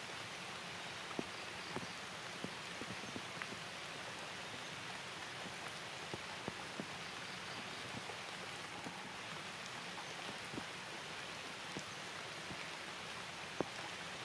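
Steady rain falling, a fine even hiss broken by scattered sharp ticks of drops striking nearby surfaces.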